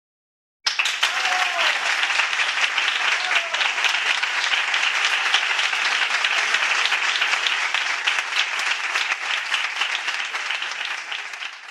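Crowd applauding: many hands clapping, starting suddenly about a second in and fading out near the end.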